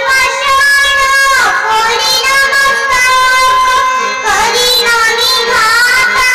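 A child singing a devotional kirtan melody in long held notes with vibrato, sliding down in pitch twice, over a steady held accompanying note.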